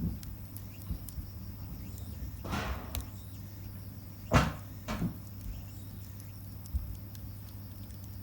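Wood bonfire burning, with faint crackling ticks over a low steady hum and a few louder knocks and rustles, the loudest about four and a half seconds in.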